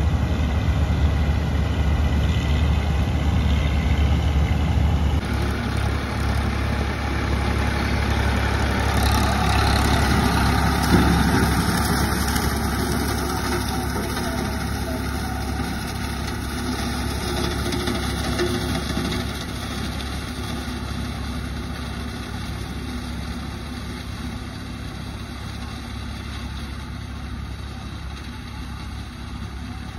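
Diesel farm machinery running steadily: a combine harvester in the first few seconds, then a tractor driving a rear-mounted straw cutter through paddy stubble. The sound grows fainter over the last ten seconds as the tractor moves off.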